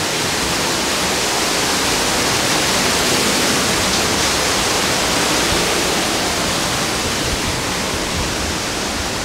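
Man-made waterfall pouring over rockwork, heard close up from behind the curtain of falling water: a loud, steady rush that fades a little near the end.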